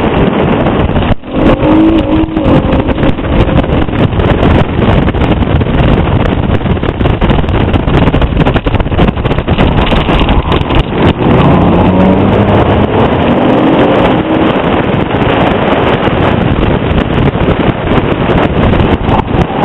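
Mazda6 being driven hard, heard through heavy wind rushing over a microphone held outside the window. The engine note sits under the wind and climbs as the car accelerates about twelve seconds in.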